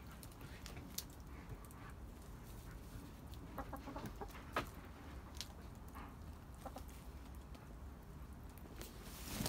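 Domestic hens clucking quietly as they feed, with occasional sharp taps of beaks pecking at oatmeal in a wooden trough.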